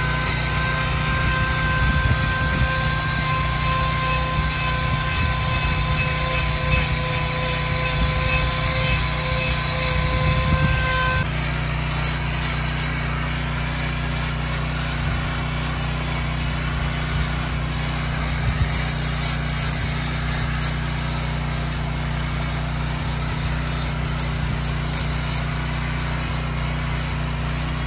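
Corded electric hoof grinder trimming a cow's hooves. It gives a steady high whine that cuts off abruptly about eleven seconds in, followed by rougher grinding noise, all over a steady low hum.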